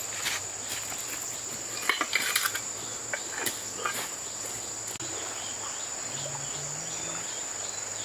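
Steady high-pitched drone of insects in the streamside forest, with a few brief clicks and rustles about two seconds in and again near three and a half seconds.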